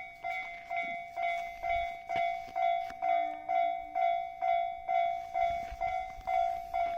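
Railway level crossing warning bell ringing steadily, a repeated ding of one pitch at about two and a half strikes a second, with a brief lower tone about three seconds in.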